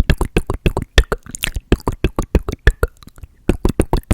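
Close-microphone ASMR mouth sounds: rapid wet clicks and pops, about eight a second, with a short pause about three seconds in.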